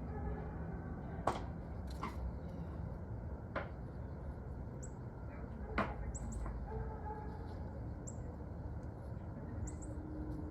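Outdoor ambience with a steady low rumble, broken by four sharp clicks in the first six seconds. About halfway through, a wild bird gives half a dozen very short, high chirps, some in quick pairs.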